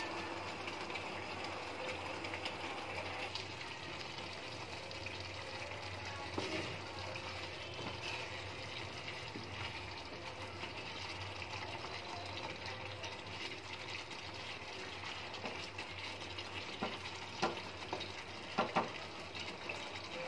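Brinjal curry bubbling and simmering in a steel pot, a steady sputtering hiss, stirred partway through, with a few sharp knocks near the end.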